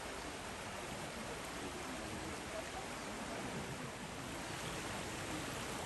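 Steady rushing of a mountain stream, an even water noise, with faint voices of passers-by in the background.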